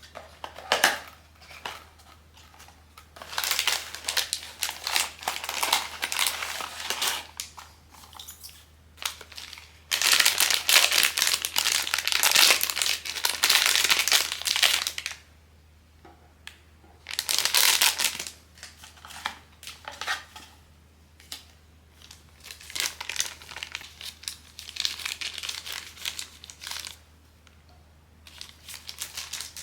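Plastic packaging of a blind-box figure being crinkled and handled, in several bursts, with the longest and loudest stretch in the middle.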